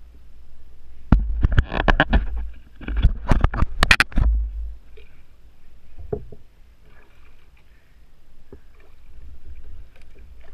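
A hooked fish thrashing at the surface beside a kayak: a burst of loud splashes and knocks between about one and four seconds in, then a few fainter ones.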